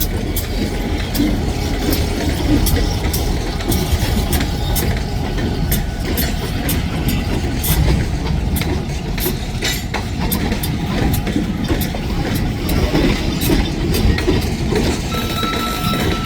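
Freight train rolling past, its wheels clicking irregularly over rail joints above a steady low rumble. A thin high squeal comes in near the end.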